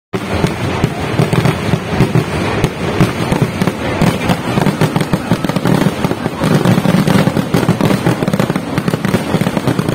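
Fireworks display: a rapid, unbroken barrage of bangs and crackling from rockets and aerial shells bursting overhead.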